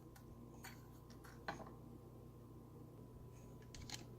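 Near silence with a low steady hum, broken by a few faint, scattered clicks and taps of kitchen utensils, about five in all, the clearest about a second and a half in and two close together near the end.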